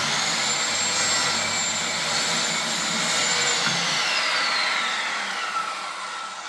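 A new electric circular saw spinning up at full speed and cutting through a block of wood, with a steady high whine. About three and a half seconds in, it starts to wind down, its whine falling in pitch and fading as the blade slows.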